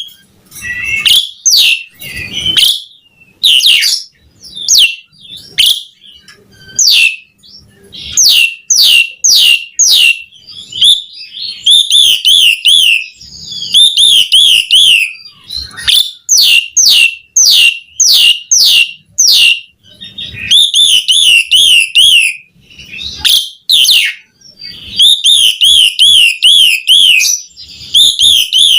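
Asian pied starling singing vigorously: phrases of sharp, downward-sweeping whistles alternate with fast, wavering warbled trills, in loud bursts separated by short pauses.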